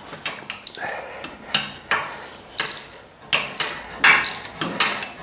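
Ratcheting wrench clicking as it loosens a seat-mounting bolt, in a run of uneven strokes.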